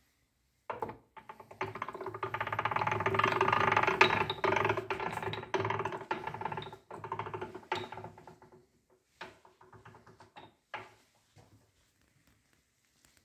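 Electric motor driving a grindstone through a shaft, switched on about a second in. It runs with a fast, even rattle and hum that swells for a few seconds and then dies away as it coasts down, ending in a few separate knocks.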